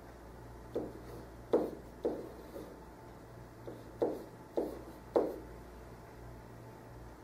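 Pen writing on a whiteboard: a run of short, separate strokes and taps as an equation is written out, most of them in the first five seconds, over a steady low hum.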